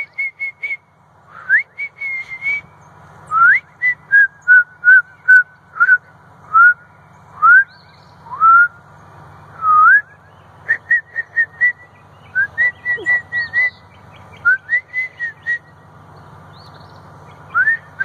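A person whistling bird-call imitations up close to draw birds in: a run of loud whistled phrases, each an upward slur into a held or quickly repeated note. There are fast strings of short notes about four seconds in and again around eleven seconds.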